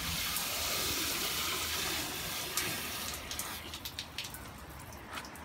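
Water running and splashing steadily, easing off about three seconds in to scattered drips and small ticks.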